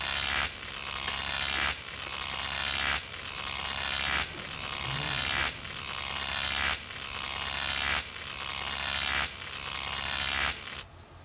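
Outro sound effect: a hissing, buzzy swell that builds and cuts off about every second and a quarter, eight times over, over a low hum. It stops abruptly near the end.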